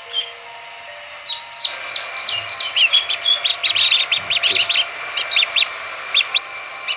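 A bird singing: short, high chirps that slide downward, coming in quick runs from about two seconds in and thinning near the end.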